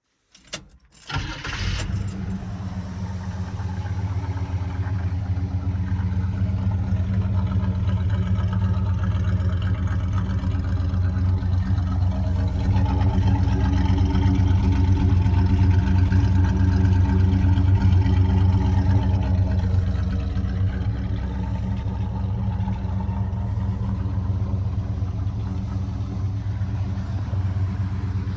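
Car engine cranking briefly and catching about a second and a half in, then running steadily at idle, picking up a little in the middle before settling back.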